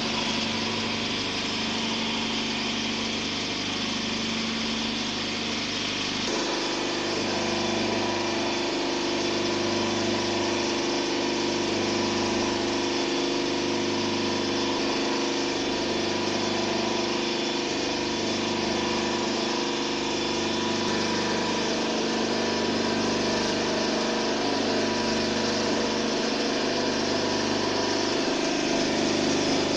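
Universal testing machine's hydraulic pump and motor running steadily while it loads a cement mortar cube in compression. There is a slow regular pulse about once a second, and a steady hum joins about six seconds in.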